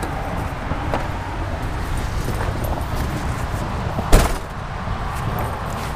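A pickup truck door slammed shut once, a sharp bang about four seconds in, over a steady low rumble.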